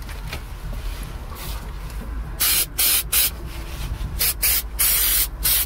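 Aerosol can of rust converter spraying in a series of short hissing bursts, about eight of them, starting about two and a half seconds in.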